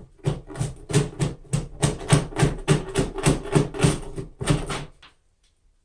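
Beeswax comb being scraped off a wooden hive frame: a fast run of rasping strokes, about three a second, that stops abruptly near the end.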